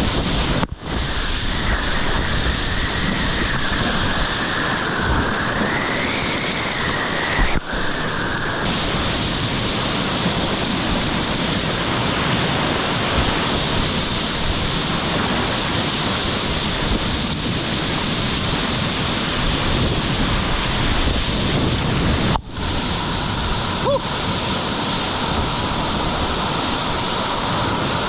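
Whitewater of a river rapid rushing steadily around a kayak, with wind buffeting the camera microphone. The sound drops out briefly twice, about a second in and near the end.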